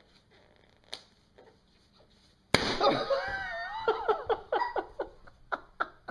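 A balloon pops with one sudden sharp bang, then a person laughs in rhythmic bursts that trail off.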